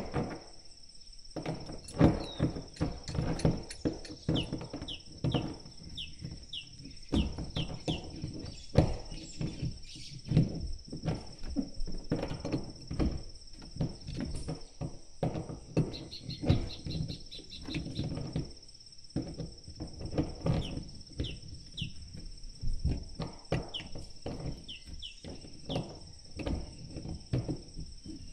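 Irregular knocks and handling clatter from work on the tank fitting, over a steady high-pitched insect trill, typical of crickets. Runs of short high bird chirps come several times.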